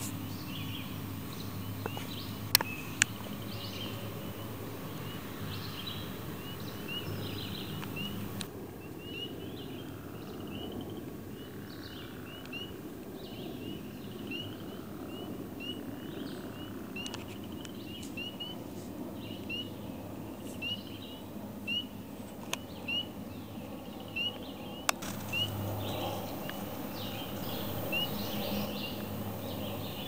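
Outdoor natural ambience: a short high chirp call repeats steadily, about one every half second to second, over a low steady hum and background hiss.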